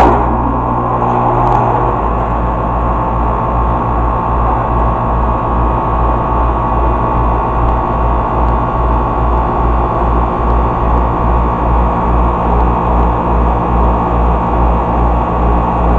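Carrier 38BRC outdoor air-conditioning unit running loudly just after start-up: compressor and condenser fan, with a steady hum and a low pulsing about three times a second. The owner puts the loudness down to the compressor taking in liquid refrigerant instead of vapour.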